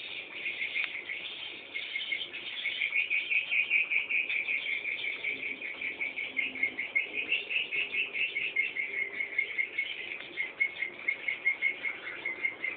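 Edible-nest swiftlet chicks calling while they wait for a parent to return: a dense, continuous stream of rapid high chirps, several a second.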